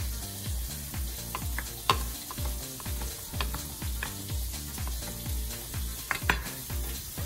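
Chef's knife chopping cooked chicken on a wooden cutting board: irregular sharp chops, the loudest about two seconds in and just after six seconds, over a steady low beat and a fine hiss.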